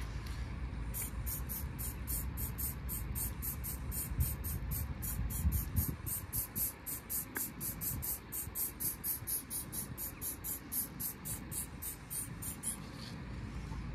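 Aerosol spray paint can fired in rapid short bursts to stipple dots onto a wall, a quick run of about four short hisses a second. The bursts start about a second in and stop shortly before the end.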